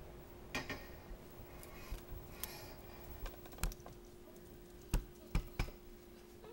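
Light, irregular clicks and taps of a plastic netting needle and flat mesh gauge being handled while net knots are tied, about ten scattered over the seconds, the sharpest few near the end. A faint steady hum runs underneath.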